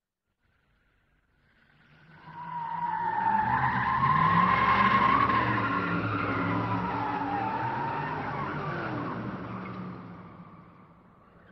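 Car engine revving and tyres squealing, a film-style sound effect whose pitch rises and falls. It swells in about two seconds in, holds, and fades away near the end.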